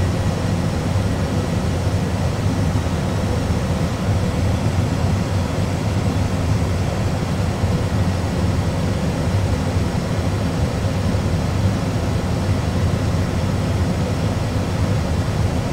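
Steady in-flight cockpit noise of an Airbus A320 full flight simulator: an unchanging low rumble of simulated engine and airflow sound, with a faint steady hum above it.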